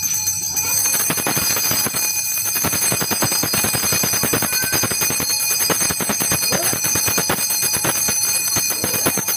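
Metal bells ringing rapidly and without pause, with many quick strokes a second over a steady high ringing.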